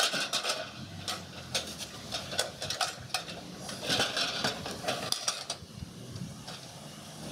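Large rusty sheet-metal cans knocking and scraping against each other as one is set onto another to build a stacked tin-can smoker. It is a quick run of clanks and scrapes that dies away after about five and a half seconds.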